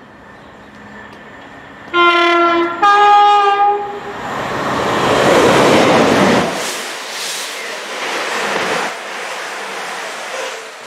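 A CrossCountry Voyager diesel multiple unit sounds its two-tone horn, a short lower note then a higher one, as it approaches, then rushes past at speed. The noise peaks as the front passes, followed by a run of swishes as the carriages go by.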